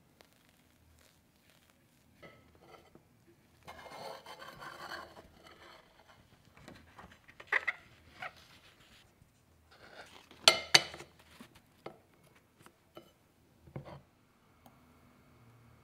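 Kitchen handling noises from cake-assembly tools (offset spatula, plastic acetate collar, stainless steel cake ring on a plate). A rustle comes about four seconds in, then several sharp clicks and knocks, the loudest a pair about ten and a half seconds in.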